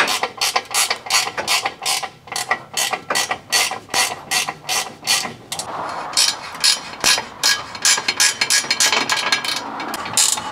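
Hand ratchet wrench clicking in quick runs as it is swung back and forth to undo the bolts at an exhaust pipe flange, the clicks coming faster in the second half.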